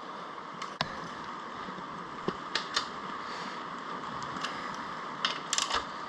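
Hand ratchet tightening down the air intake's mounting bolts: irregular metallic clicks, several in quick groups, over a low steady background hum.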